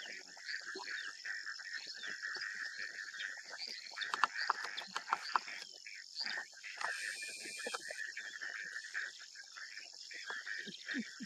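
Steady dawn chorus of frogs and insects, a continuous high trilling, with scattered short chirps and ticks and a cluster of sharper ticks about four to five seconds in.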